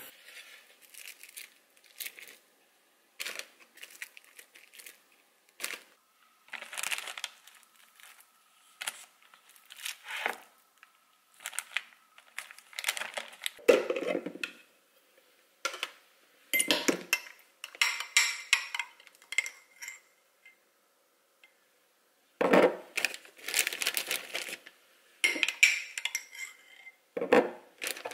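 A plastic zip-top bag crinkling and rustling in irregular bursts as sliced raw meat is put into it and handled, mixed with knocks and clinks from a glass jar of sauce.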